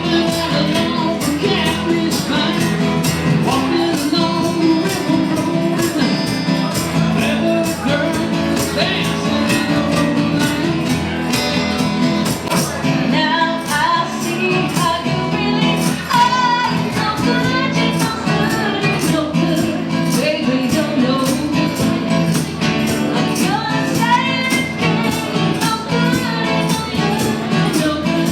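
Rock band with guitars and drums playing an instrumental stretch over a steady beat, with a melodic lead line bending in pitch above the band.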